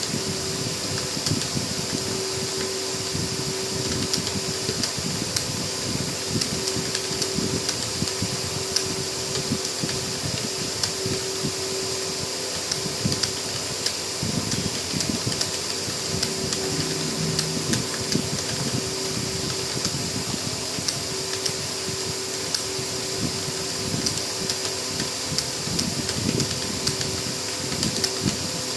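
A computer keyboard being typed on fast and without a break: a dense, even stream of key clicks over a steady background hum.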